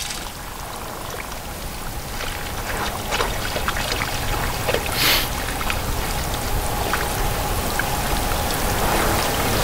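Water trickling and splashing on wet lake ice over a steady low rumble, with a few faint clicks and one brief louder splash about five seconds in.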